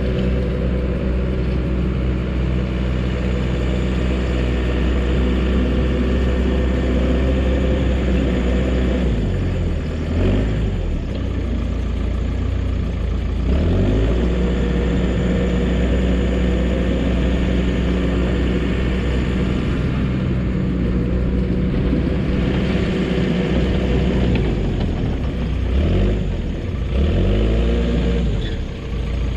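Dresser bulldozer's diesel engine running steadily under work, its pitch sagging and climbing back a few times as the engine is loaded and eased.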